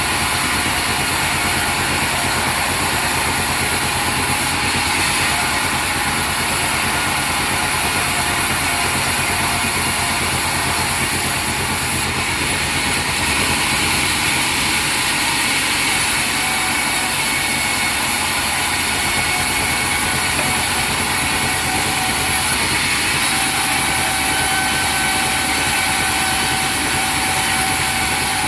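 Sawmill machinery running steadily and loudly: an engine-like drone with a faint whine held on a few steady pitches.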